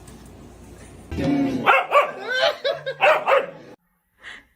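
A dog barking and yipping in a quick string of loud, pitched calls that bend in pitch, cut off abruptly near the end.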